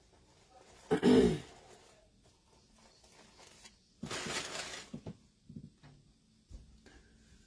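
A short vocal sound about a second in, then wired ribbon and starched fabric rustling for about a second as hands fluff a bow on a wreath, followed by a few light handling taps.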